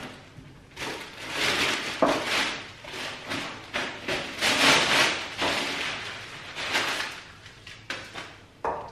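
Plastic packaging rustling and crinkling in repeated bursts as a lampshade is pulled out of its wrapping, with a few sharp knocks in between.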